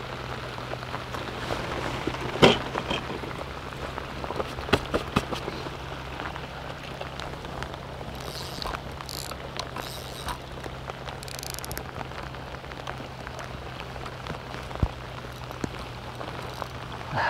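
Heavy rain falling, with scattered drop hits ticking close by and a sharp knock about two and a half seconds in.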